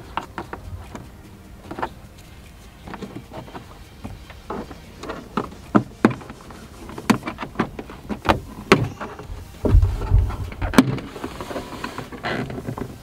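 Plastic retaining clips popping loose as the upper liftgate trim panel of a 2022 Hyundai Santa Fe is pried and pulled off: a string of sharp clicks and snaps, growing busier past the middle, with a dull thump about ten seconds in.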